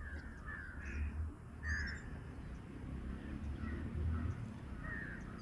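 Short animal calls repeated about ten times over five seconds, at irregular intervals, over a steady low rumble.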